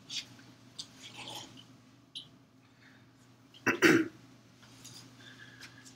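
Quiet lecture room with faint scattered clicks, and one short cough a little past halfway through.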